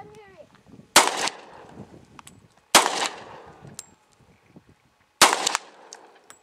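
Three pistol shots, the first two close together and the third about two and a half seconds later, each cracking sharply and dying away in a short tail.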